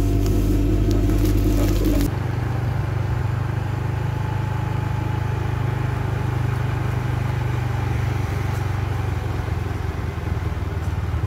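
A motor vehicle's engine running steadily with road noise, a low even drone. For the first two seconds a different steady low hum is heard instead.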